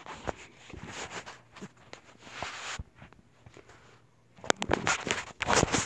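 Handling noise from a handheld camera: irregular rustling and small knocks as it is moved about, with a louder stretch of rustling near the end.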